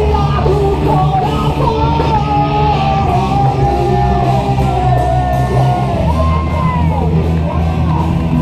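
Music with a singing voice: a wavering sung melody over a steady bass line.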